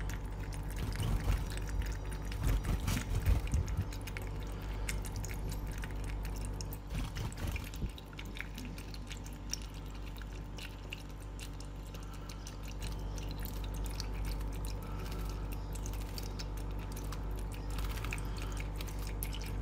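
Thin stream of tap water trickling into cupped hands, with a European goldfinch splashing as it bathes in the pooled water. The splashing comes in flurries, busiest in the first four seconds and again about seven seconds in.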